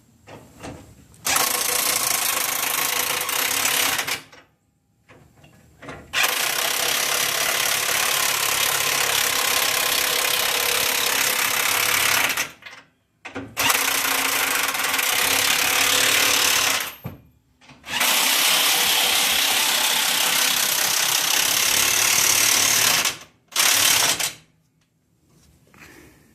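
Power tool running in five long bursts of several seconds each, with short pauses between. It sounds like steady, loud, hissing-buzzing noise, the kind made while driving the rear-axle bolts back in.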